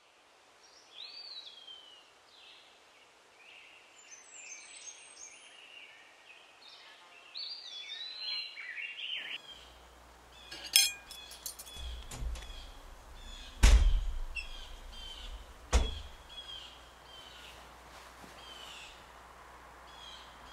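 Small birds chirping and singing outdoors for the first nine seconds or so. Then comes a low indoor hum with a few sharp knocks and heavy thumps, the loudest about two-thirds of the way in, while faint bird chirps carry on.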